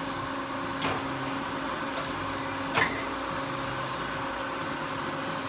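Hercules Ajax Mazak 18 x 60 gap-bed lathe running, a steady mechanical hum and whine from its drive and headstock gearing. Three sharp clicks come as its levers are worked, the loudest about three seconds in.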